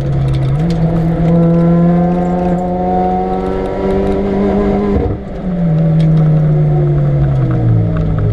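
Supercharged four-cylinder engine of a modified Mini Cooper R53 (TVS900 supercharger) pulling hard on track, its pitch climbing slowly through a gear. About five seconds in the sound briefly dips, then the revs fall away steadily.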